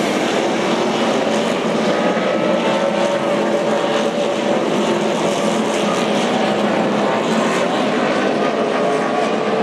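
Several NASCAR stock cars' V8 engines running together at low speed: a loud, steady drone with many pitches shifting against each other.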